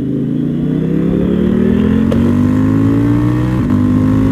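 Ducati motorcycle engine accelerating hard, its pitch rising steadily for about three and a half seconds, then a quick upshift near the end, after which the pitch holds steady. Picked up through a helmet intercom microphone that filters out much of the exhaust sound.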